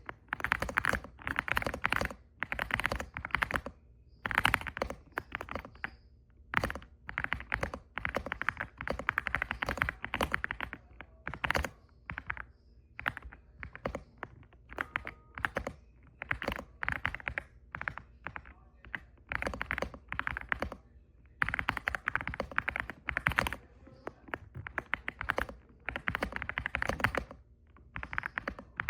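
Typing on an EPOMAKER x Aula F75 gasket-mount mechanical keyboard: fast runs of key strokes in bursts of a second or two, with short pauses between them.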